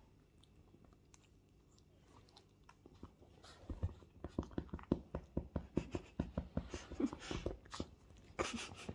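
A puppy chewing and mouthing at cloth, heard as a run of small clicks, several a second, starting about three seconds in after a quiet start.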